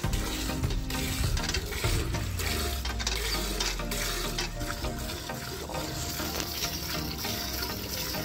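Milk squirting in rhythmic jets into a steel bucket as a water buffalo is milked by hand.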